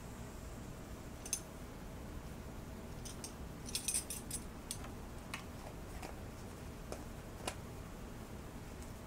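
Small clicks and light clinks of a spice jar and measuring spoon being handled as fennel seeds are measured out: a quick flurry about four seconds in, and a few single ticks before and after it.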